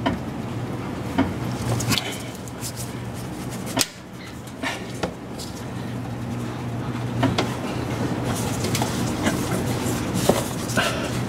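Hand wrench clicking and knocking on a 14 mm alternator bolt and the surrounding metal as someone tries to turn it loose, in scattered sharp taps over a steady low hum.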